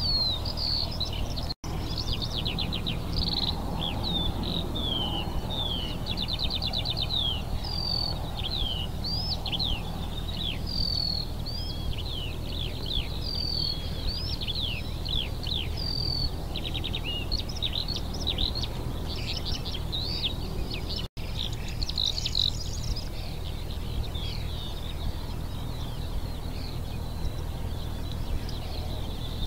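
Many small songbirds singing and calling together in a dense dawn-meadow chorus of quick chirps, trills and short whistled notes, over a steady low background rumble. The sound drops out for an instant twice, once near the start and once about two-thirds of the way through.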